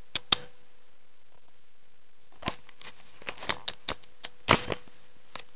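Irregular light clicks and scuffs of movement on bed covers: two near the start, a quiet stretch, then a quick scattered run of them through the second half, over a faint steady hum.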